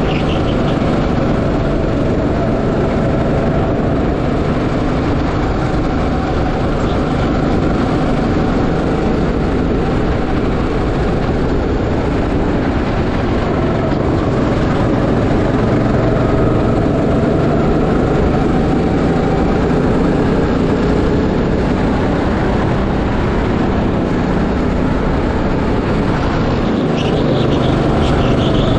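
Go-kart engine running continuously as the kart laps the track, its pitch rising and falling a little through the corners, under heavy wind and road rush on the camera microphone.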